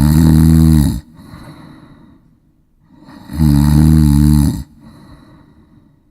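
A sleeping cat snoring in a regular rhythm: a loud snore that ends about a second in, a softer breath, then a second loud snore about three seconds in, followed by another soft breath.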